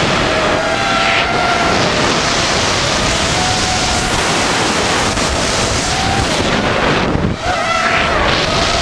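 FPV racing quadcopter's Emax RS2205 brushless motors and DAL props whining, the pitch rising and falling with the throttle, under heavy wind rush on the onboard camera's microphone. The throttle drops briefly about seven seconds in, then comes back up.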